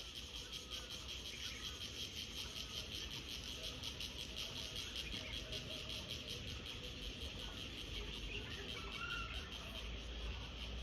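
A small insect chirring steadily, a fast pulsing high buzz that keeps up without a break.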